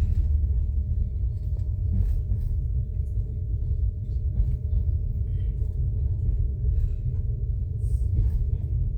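Steady low rumble of a moving vehicle, with faint scattered clicks and a thin steady tone over it.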